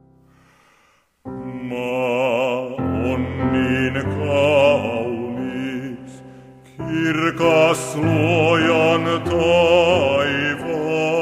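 A male baritone voice singing a slow Finnish Christmas hymn with piano accompaniment. The last chord of the piano introduction fades out and a brief hush follows. The voice comes in about a second in, with a wide vibrato, and pauses briefly for breath about halfway.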